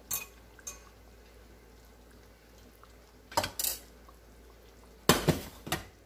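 Kitchen utensils and dishes clinking and clattering in short bursts: two light clinks at the start, a clatter about three and a half seconds in, and a louder clatter about five seconds in.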